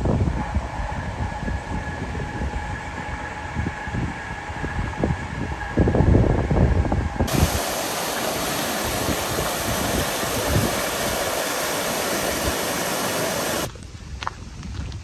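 Wind rumbling on the microphone with a faint steady hum, then, about seven seconds in, water gushing loudly through the leaking wooden gates of a canal lock, cutting off suddenly shortly before the end to quieter wind.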